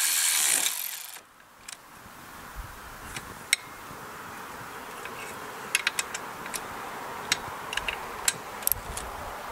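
Cordless electric ratchet running as it drives in a valve cover bolt, cutting off about a second in. Then come scattered light clicks and clinks of the tool and metal parts being handled.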